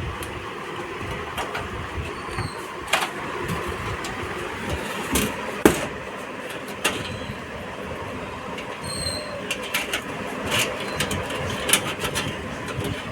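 Scattered clicks and knocks of computer parts being handled and fitted into a metal PC cabinet, over a steady background hiss and rumble. The loudest is a sharp click a little before halfway.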